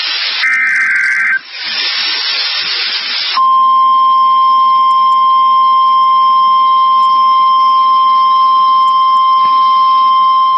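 NOAA Weather Radio emergency alert: the end of a burst of SAME digital header data (a warbling data screech), then static hiss. About three seconds in, the steady single-pitch 1050 Hz warning alarm tone starts, signalling the tornado warning that follows.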